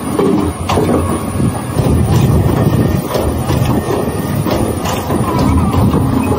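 Soap-making machinery running, with a steady mechanical rumble and irregular sharp clacks.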